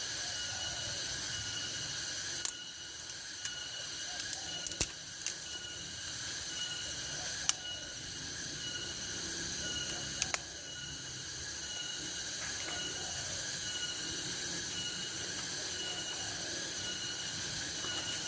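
Steady chorus of rice-field insects, several high trills held at fixed pitches, one of them pulsing. Scattered sharp clicks and knocks break in from about two seconds to ten seconds in.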